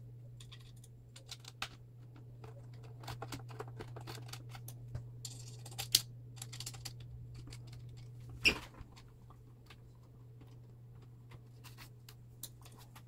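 Scattered small clicks and taps of a screw and a hex key being worked by hand to fasten the mainboard compartment to the laser engraver's frame, with a sharper knock about 8½ seconds in, over a faint steady low hum.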